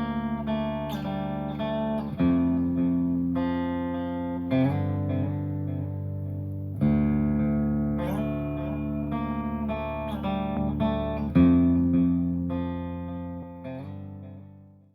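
Intro music: a guitar playing a slow chord progression, fading out near the end.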